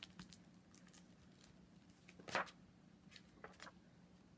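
Hardcover picture book being opened and its pages handled: soft paper rustles and small clicks, with one louder page rustle about two seconds in.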